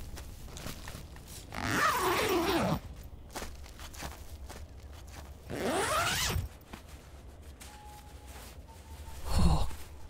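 A sleeping bag's zipper being pulled, in two long zips about four seconds apart, with a brief rustle near the end. Faint crackling from a campfire runs underneath.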